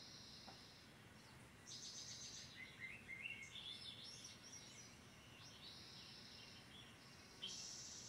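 Faint songbird chirps and trills played from a bird-feeder video through a TV's speakers: several short trilled phrases, one after another, over a low hiss.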